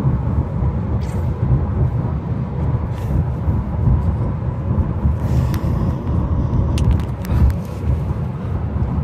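Road noise inside a moving car's cabin: a steady low rumble from the tyres and engine while driving, with a few light clicks near the end.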